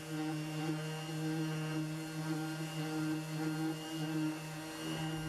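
Ryobi random orbital sander running steadily, with a dust-extraction hose fitted, sanding a fiberglass deck repair smooth. It makes an even motor hum with a high whine and sanding hiss.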